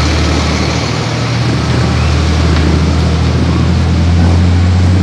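Concrete mixer truck's diesel engine running steadily close by, a low hum that grows a little louder about four seconds in.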